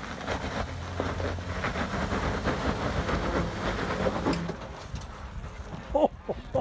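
Four-door Jeep Wrangler crawling over sandstone at low engine speed: a steady low engine hum under a crackle of tires crunching and scraping on rock and grit.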